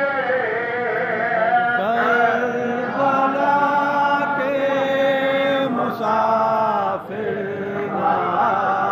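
Men chanting a noha, a Muharram lament, in long held notes, phrase after phrase, with brief breaks about six and seven seconds in.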